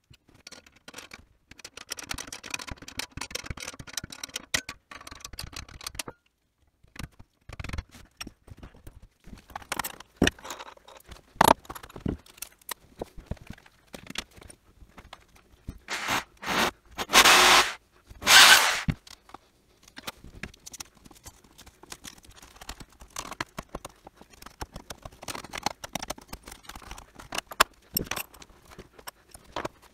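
Scrapes, clicks and knocks of hand work on a chipboard bell wheel and its slotted steel channel frame. About two-thirds of the way through come two louder scraping noises, each about a second long.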